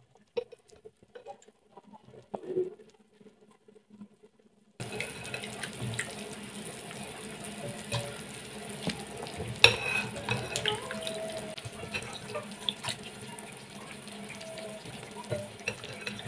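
Chunks of potato and carrot dropped into a pan of simmering pork broth, with scattered splashes and knocks. From about five seconds in, a steady bubbling of the broth runs underneath.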